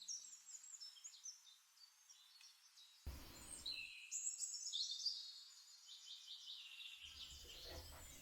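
Faint birdsong: several birds chirping with quick, high, overlapping notes.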